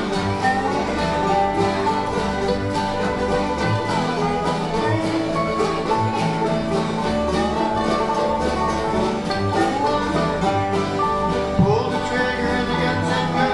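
Acoustic bluegrass string band playing an instrumental passage without singing: plucked strings over a steady bass beat, with some bowed string.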